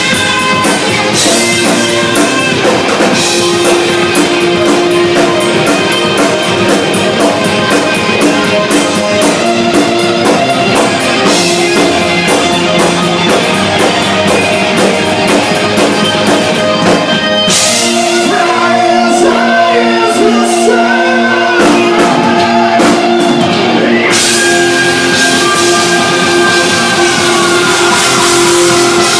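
Live rock band playing loudly on drum kit and guitars. About two-thirds of the way in the cymbals drop out for several seconds while a bending melody line carries on, then the full kit comes back in.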